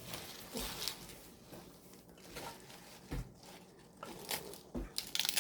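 Washed collard greens being handled and put into a pot: irregular rustling and crunching of the leaves, with a few soft knocks.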